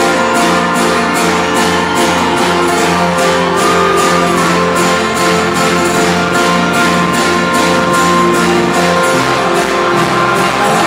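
Live folk-rock band playing loud, with acoustic guitar strummed over a steady beat.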